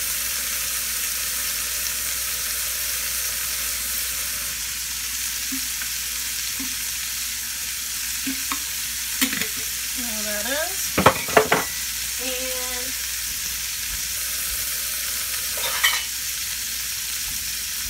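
Vegetables frying in oil in a skillet, with a steady sizzle, beside a pot of water boiling for grits. A few brief knocks come a little past halfway.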